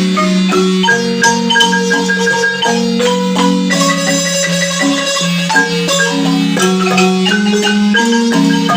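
Marimba music: a melody of quick mallet strokes, with fast repeated strikes on single notes, over sustained lower notes.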